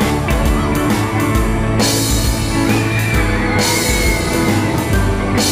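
Rock music with electric guitar and drums, with cymbal crashes about every two seconds.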